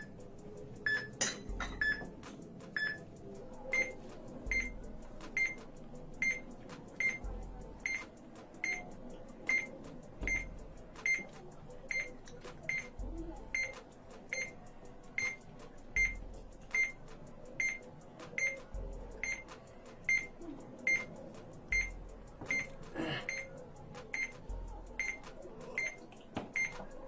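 Electronic countdown timer beeping steadily, one short high beep about every 0.8 seconds.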